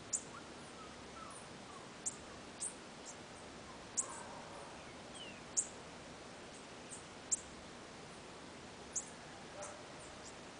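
Bananaquit calling: short, very high, thin chip notes, each falling quickly in pitch, about ten of them at irregular intervals of roughly a second.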